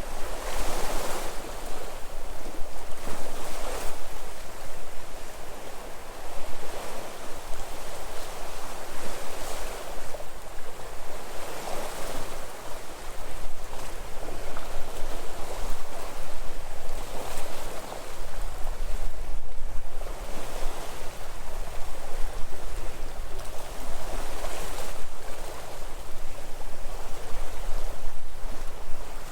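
Sea waves washing ashore as a continuous hiss, swelling with each wave every two to three seconds, over a steady low rumble.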